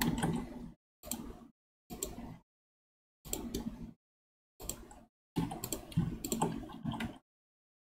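Computer keyboard and mouse clicks picked up by the desk microphone, in about six short bursts of clicking, each cutting off abruptly into dead silence.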